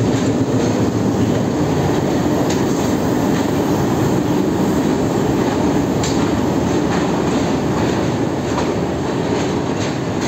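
Passenger train rolling slowly alongside the platform: a steady, loud rumble of wheels on rails with occasional clacks.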